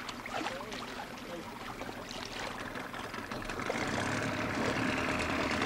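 Boat engine running steadily with a low hum, growing louder about halfway through.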